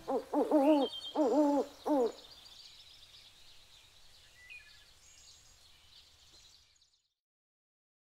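Owl hooting: a quick series of four or five hoots over the first two seconds, each bending in pitch, followed by a faint hiss that fades away.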